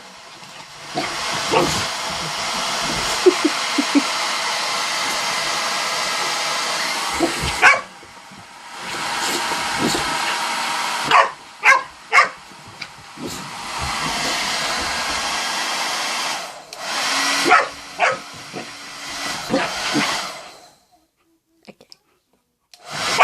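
A hair dryer blowing in long runs, switched off and on a few times, while a boxer dog barks at it now and then. Everything stops about three seconds before the end.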